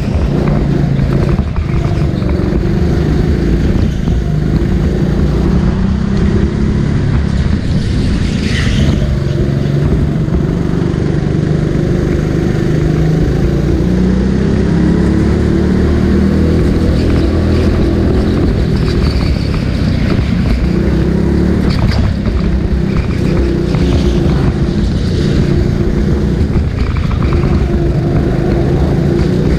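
Go-kart engine running continuously at speed, its pitch rising and falling over a few seconds at a time as the revs change.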